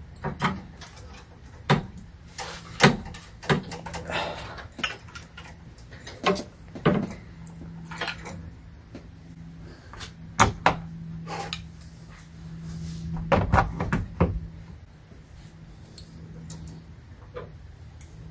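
Scattered, irregular clicks and knocks of hand tools and a long metal bar against engine parts during serpentine belt work, with a cluster of louder knocks a little after the middle. A steady low hum runs through the middle stretch.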